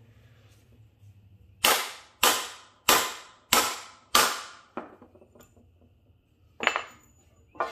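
Hammer blows driving a ball joint into a UTV's aftermarket A-arm: five sharp strikes about half a second apart, a lighter tap, then one more blow near the end.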